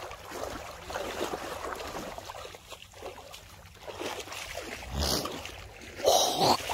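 Water sloshing and splashing, with two louder splashes about five and six seconds in.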